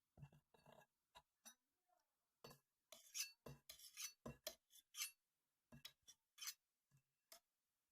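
A quiet run of short, irregular taps and clinks of small hard objects, about twenty of them, thickest in the middle.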